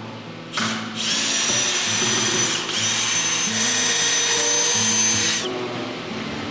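Cordless drill running its screwdriver bit to back screws out of a plywood shipping crate: a short burst, then a steady high whine of about four seconds with one brief break.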